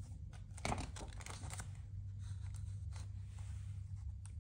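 A page of a picture book being turned by hand: a soft paper swish about three-quarters of a second in, then a few light rustles and taps. A low steady hum runs underneath.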